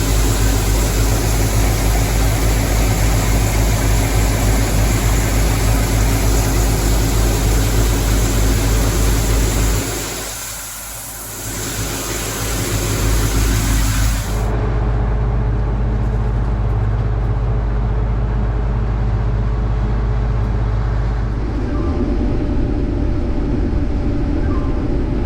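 Diesel farm harvest machinery running steadily, a low engine hum under loud wide mechanical noise. The noise dips briefly about ten seconds in, then drops away abruptly near fourteen seconds, leaving a steadier engine hum.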